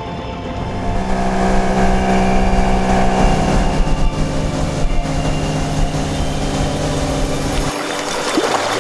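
Boat motor running steadily, its pitch dropping slightly about three seconds in; it falls away near the end, leaving a few faint clicks.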